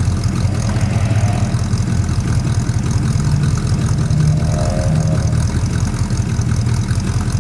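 Plymouth Suburban's engine idling with an uneven, irregular misfire. The owner suspects an intake manifold leak.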